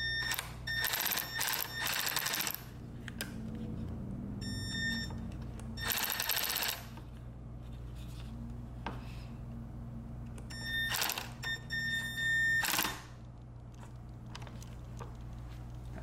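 Small cordless electric screwdriver driving small screws into a steering wheel's button trim, running in several short bursts with a thin high whine.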